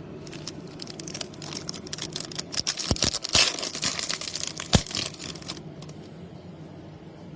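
Plastic trading-card pack wrapper being torn open and crinkled by hand: a few seconds of dense crackling with several sharp snaps, busiest in the middle, then it stops.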